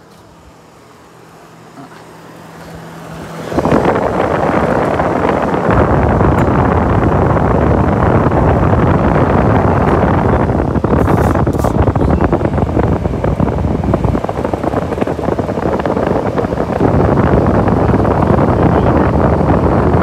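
Fan of a 1960s Westinghouse Custom Mobilaire 5000 window air conditioner running on high, fan only, the compressor not cutting in with the thermostat turned all the way down. A loud, steady rush of moving air sets in abruptly about three and a half seconds in, with a low rumble of air striking the microphone that comes and goes.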